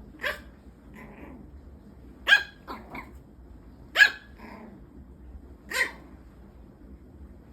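A dog barking in short, sharp barks: four loud ones spaced roughly a second and a half to two seconds apart, with a few softer, shorter barks between them.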